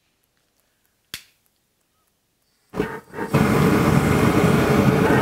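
A single sharp click about a second in, then a homemade foundry gas burner lights a little under three seconds in with a brief whoosh and settles into a loud, steady rushing flame noise.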